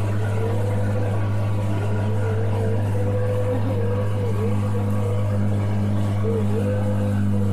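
A small boat's engine running steadily under way, a constant low drone with a higher tone above it that wavers in pitch.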